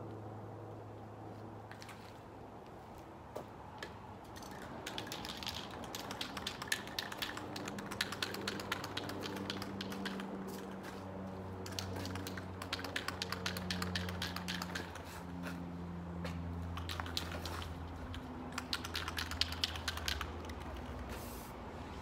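Aerosol spray paint can being shaken, its mixing ball rattling rapidly in several bursts before spraying.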